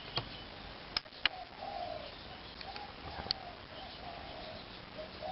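A dove cooing repeatedly in the background, a low hooting call. A few sharp clicks cut in, the loudest two close together about a second in.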